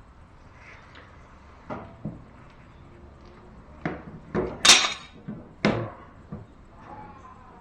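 A series of separate knocks and clanks, about seven over a few seconds with the loudest near the middle: hand tools and metal outboard-motor parts being handled and set down.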